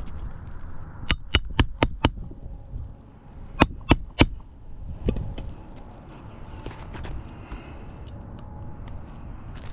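Two quick runs of sharp, slightly ringing clicks: five at about four a second, then three more about a second and a half later, over light scuffing.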